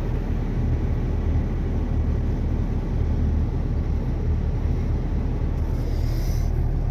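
Car engine running steadily at low revs, heard from inside the cabin as an even low hum.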